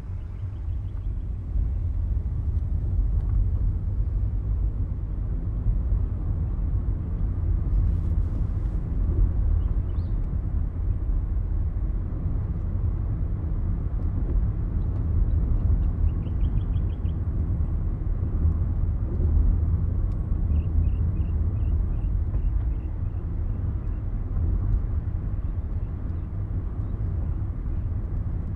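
Steady low rumble of a car driving along, engine and tyre-on-road noise, with a few faint high chirps in quick runs now and then.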